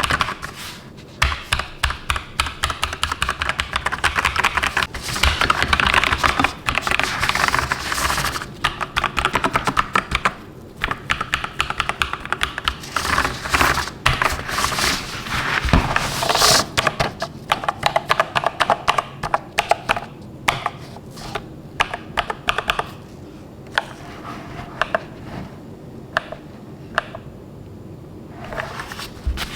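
AKKO 3098B mechanical keyboard being typed on: quick runs of key clicks with short pauses. The clicks grow sparser in the last few seconds.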